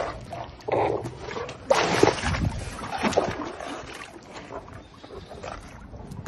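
Hippo in the water chomping bell peppers and splashing: irregular wet sloshing and crunching bursts, loudest about two seconds in.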